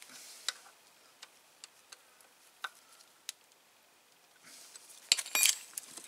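Metal hand tools clicking and clinking against metal parts: a few scattered light ticks, then a quick cluster of louder clinks about five seconds in.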